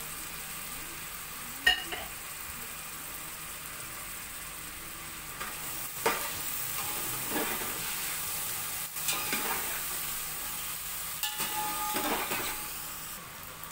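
Boiled chickpeas sizzling as they fry in spiced oil and masala in a large metal pot. A sharp click comes about two seconds in. From about five seconds in, a metal spatula stirs and scrapes them against the pot and the sizzle grows louder.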